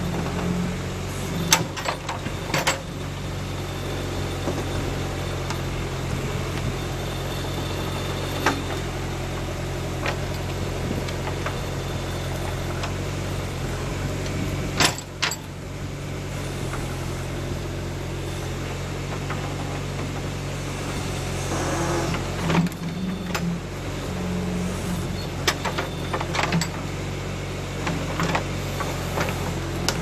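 John Deere 310A backhoe engine running steadily under hydraulic load while the bucket digs around a stump. Sharp metallic clanks from the bucket and boom linkage come every few seconds, more often near the end.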